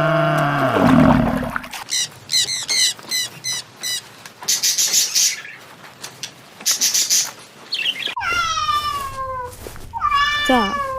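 A cat meowing, two long drawn-out meows that fall in pitch, starting about three seconds before the end. Before them comes a run of short, high chirping calls, and at the very start a low, held pitched sound dies away within the first two seconds.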